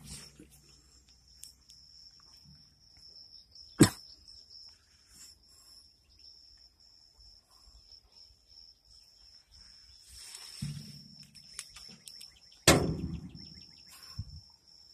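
Insects outdoors making a steady high-pitched drone. Two sharp knocks stand out above it, one about four seconds in and a louder one near the end.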